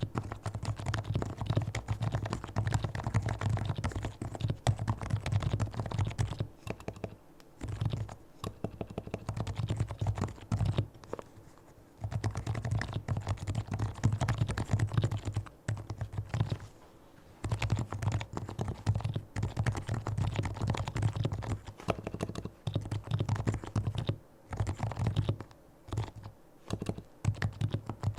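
Fast typing on a fully lubricated Leopold FC660C keyboard with Topre electrostatic capacitive switches. Keystrokes come in quick runs broken by short pauses.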